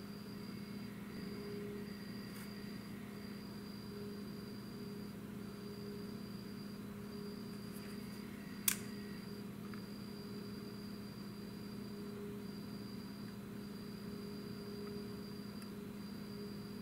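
Steady low hum of room tone with a faint high tone that drops out briefly now and then, broken once, a little past halfway, by a single sharp click.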